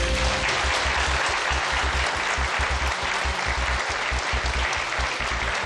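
Studio audience applauding steadily, greeting a correct answer.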